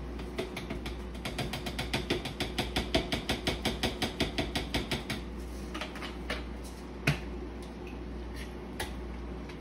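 Hand spice grinder twisted over a bowl, giving a fast, even run of ratcheting clicks for about five seconds. A few separate knocks follow, one sharp, about seven seconds in.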